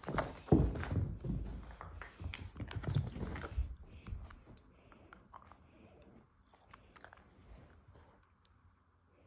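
A puppy scrambling about on a couch with loud, irregular thumps and scuffles for the first few seconds, then quiet gnawing and clicking as it chews on a chew stick.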